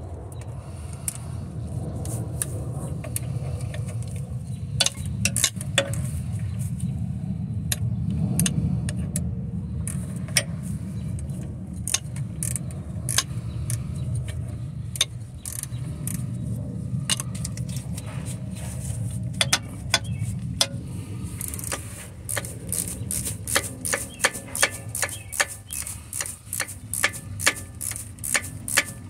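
Hand ratchet clicking on the torque mount bolt of a 2013 Ford Escape. First come scattered metallic clinks of tools on the bracket, then from about three-quarters of the way in a quick run of ratchet clicks, about three a second. A steady low hum sits underneath.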